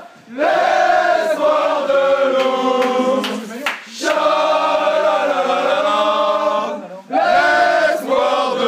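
A group of men singing a celebration chant together in unison, in long sung phrases with short breaks between them.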